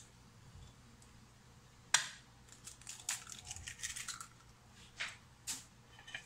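A raw egg cracked open with one sharp crack about two seconds in, then its shell crackling as it is pulled apart, with a couple of light clicks after.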